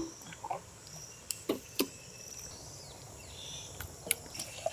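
A few scattered sharp clicks and knocks over faint outdoor background noise, with thin high chirps.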